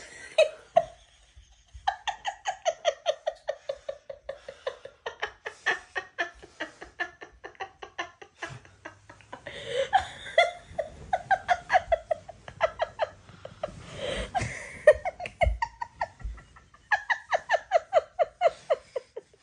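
Hearty laughter in long runs of rapid ha-ha pulses, about five a second, broken by a few short pauses.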